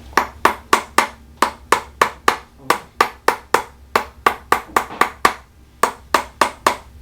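Rhythmic percussive tapping on a patient's hip, about three to four sharp strikes a second with a brief pause near the end. It is a chiropractic treatment aimed at tight, stiff hip joints.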